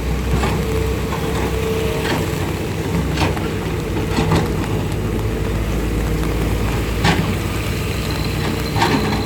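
Heavy rain falling steadily, with a deep wind rumble on the microphone and a few sharp taps every second or two.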